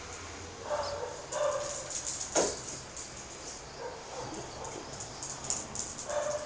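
A puppy giving short, high yips several times, with a single sharp knock about two and a half seconds in.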